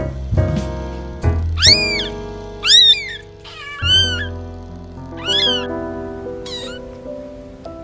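A very young kitten mewing: about five thin, high-pitched mews roughly a second apart, the last one faint. Background music with sustained notes plays underneath.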